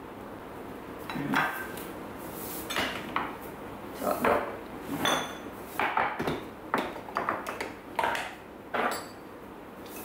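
A kitchen utensil clinking and scraping in a plastic tub of shredded chicken and mayonnaise, with dishes being handled: about a dozen short, irregular clatters and scrapes.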